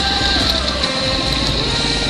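Off-road motorcycle engine heard from the bike as it rides, its pitch rising and falling as the throttle is opened and closed.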